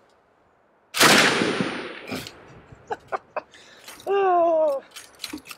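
Soviet DS39 heavy machine gun firing: one loud report about a second in that rings away over about a second, followed by a few sharp clicks. A man's short wordless vocal sound, falling in pitch, comes near the end.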